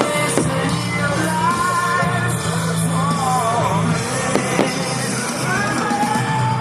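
Music with a singer, a bending sung melody over a steady bass line, with a few short cracks in the mix.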